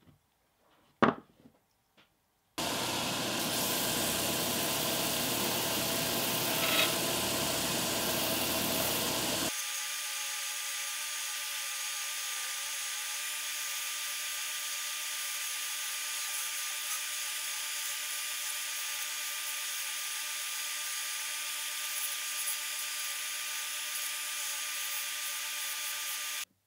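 Belt grinder running steadily while a small metal part is held against the abrasive belt. It starts suddenly after a couple of light clicks, and about a third of the way in it turns slightly quieter and thinner, then cuts off just before the end.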